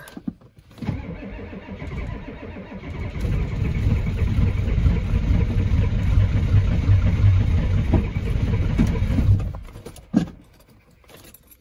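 Ford 7.3 IDI V8 diesel engine being cranked by the starter for about nine seconds, growing louder a few seconds in, then stopping without the engine catching. It is a cold start after a month of sitting, on a battery the owner expects to be weak, and he finds it a little tough to start.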